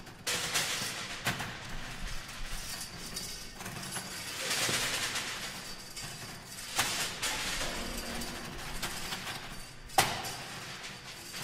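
Experimental performance noise: waves of crackling, rustling hiss that swell and fade, with a few sharp clicks. The loudest click comes about ten seconds in.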